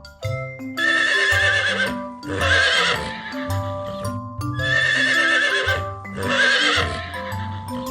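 Horse whinnying four times, in two similar pairs, each call a shrill, wavering neigh, over a light background melody.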